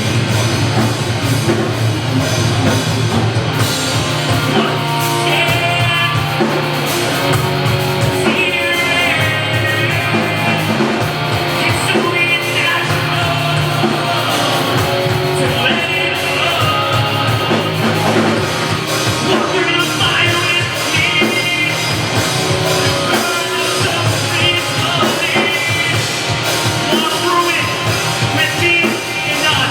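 Live post-hardcore band playing loudly: distorted electric guitars, bass and drum kit, with a singing voice over them.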